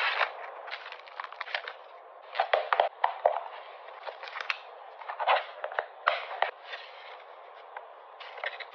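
Hands handling a clear plastic case and photocards: sharp plastic clicks and crinkling of card sleeves and paper, in clusters every second or so, over a steady hiss.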